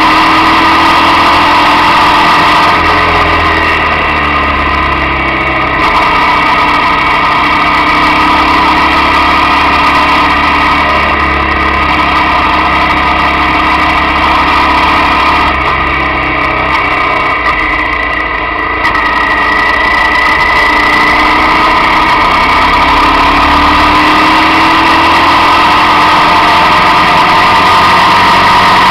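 Motorcycle engine running at road speed on a winding road, its pitch rising and falling with the throttle; it eases off about two-thirds of the way through, then pulls again with a rising pitch. Wind rush runs under it.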